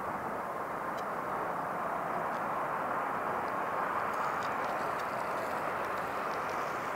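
Jet engine noise from a Boeing 787 Dreamliner on short final approach, a steady rushing sound that grows a little louder as the airliner closes in on the runway.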